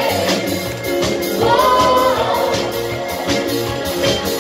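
Live band and several singers performing a song together: voices holding long sung notes over drums, guitar and horns with a steady beat.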